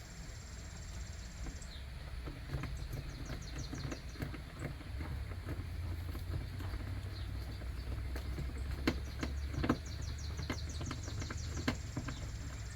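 Hand work on a vehicle's door trim panel as its screws are driven in: a few sharp clicks, mostly in the last few seconds, over a steady low hum and trains of fast, high-pitched chirping.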